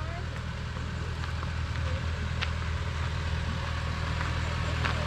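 Car engine idling steadily, with a couple of sharp clicks.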